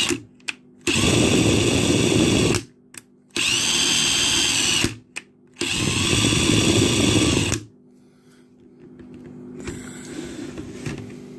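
Power drill spinning a socket-mounted hobby paint bottle to mix the paint, run in three bursts of about two seconds with short pauses, its motor whine rising at each start. It stops about eight seconds in.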